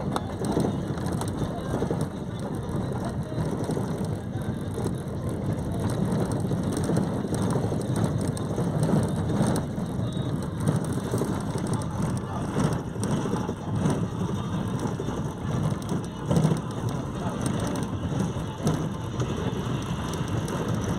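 Road noise inside a moving vehicle on a rough road: a steady low rumble with constant small rattles and knocks from the cabin as it jolts along.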